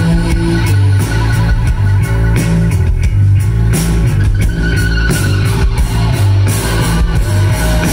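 Live post-punk band playing: electric guitar and bass guitar over a drum kit, with the bass loudest.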